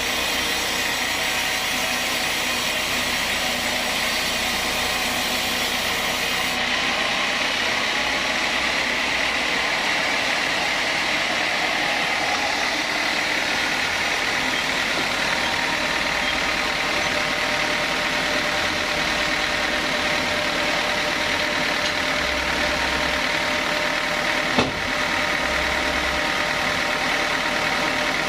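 Sawmill machinery running steadily with a constant whine. A single sharp knock comes near the end.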